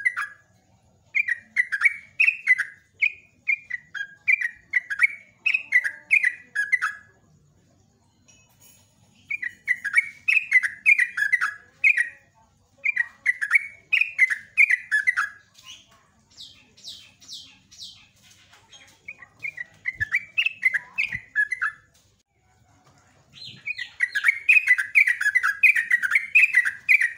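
Yellow-vented bulbul (trucuk) singing long phrases of rapid, bubbling chirps, repeated with short pauses in between. A higher, faster run of notes comes about two-thirds of the way in, and the loudest, most continuous phrase comes near the end.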